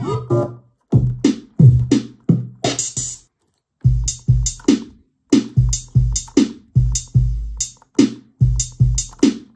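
Drum-machine beat from 606 drum samples loaded into a Teenage Engineering PO-33 K.O! pocket operator sampler: short kick-and-snare-type hits, about three a second, with a brief break a little after three seconds.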